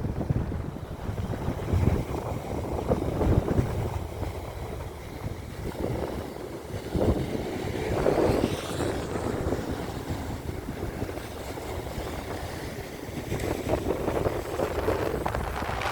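Sea waves washing and breaking in a steady noisy wash that swells about halfway through and again near the end, with wind rumbling on the microphone.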